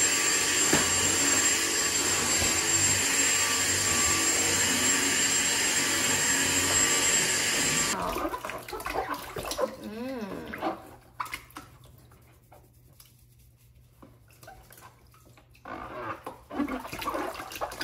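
Loud, steady rush of running water with a thin high whistle for about eight seconds, cut off abruptly. Then small splashes and sloshing of bath water in a baby tub as hands wet a baby's hair, with a short baby vocalisation and a louder burst of splashing near the end.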